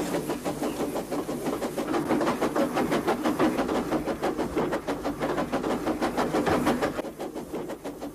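Battery-powered toy Thomas the Tank Engine running along plastic toy track, its small motor and wheels making a fast, even clicking rattle that eases slightly about seven seconds in.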